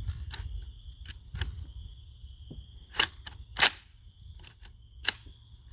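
Sharp metallic clicks and clacks of a Zastava PAP M90 rifle's action being worked by hand to clear a stovepipe jam, with the loudest clack about three and a half seconds in. Insects keep up a steady high trill underneath.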